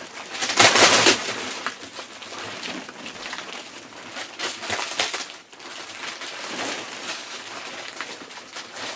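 Heavy plastic wrapping on a rolled mattress crinkling and crackling as it is pulled and torn off. A loud burst of crackling comes about half a second in, then quieter rustling.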